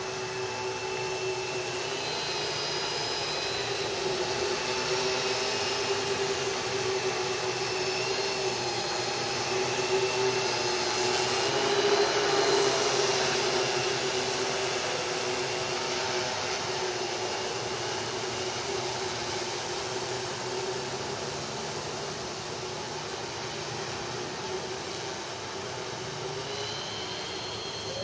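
Hexacopter's six 2836 750kv brushless motors spinning 12x4.5 propellers in flight, a steady buzzing whine with pitch that wavers slightly. It swells to its loudest about twelve seconds in, then eases off.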